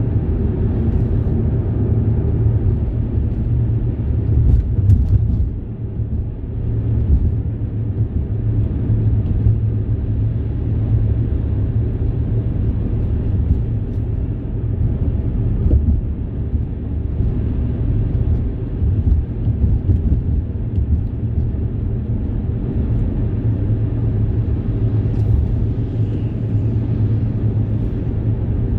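Steady low rumble of a moving road or rail vehicle.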